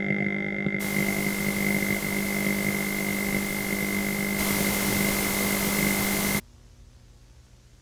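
Loud hiss of video static over a steady electronic hum with a low and a high tone. The static comes in about a second in, grows louder past the midpoint, and cuts off suddenly together with the hum about six and a half seconds in, leaving only a faint low hum.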